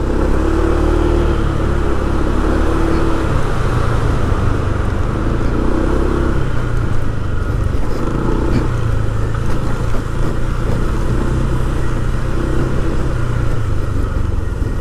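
A motor vehicle's engine running steadily while travelling, with road noise, at a fairly even level throughout.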